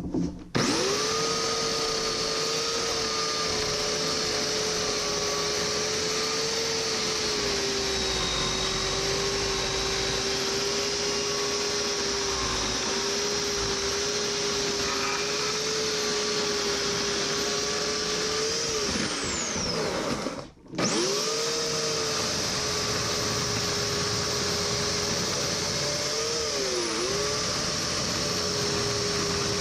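Bauer corded electric chainsaw's motor running at a steady whine. It winds down and stops about two-thirds of the way through, spins straight back up, and near the end its pitch dips briefly as it takes a load.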